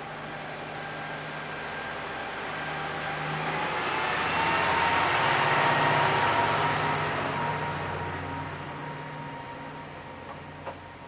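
Train passing by: its running noise swells to a peak about six seconds in and then fades, with a faint steady whine riding on it. A small click comes near the end.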